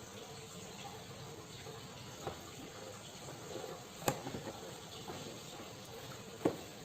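Steady background hiss with three short, sharp clicks, the loudest about four seconds in.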